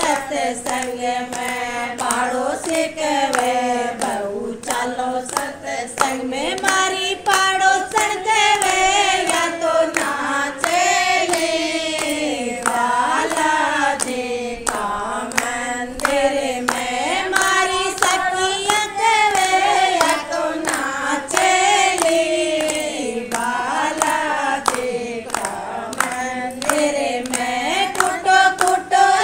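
Voices singing a Rajasthani devotional bhajan together, a flowing melody with held notes, to steady rhythmic hand clapping that keeps time.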